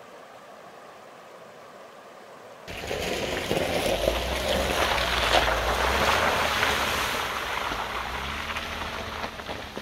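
For the first couple of seconds, the steady low rush of a shallow river. Then, suddenly, a Jeep Wrangler's engine and its tyres crunching on gravel and splashing through a muddy puddle as it passes and drives off, loudest about halfway through and fading near the end.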